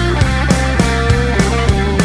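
Background music: an instrumental stretch of a rock song, guitar over a steady drum beat.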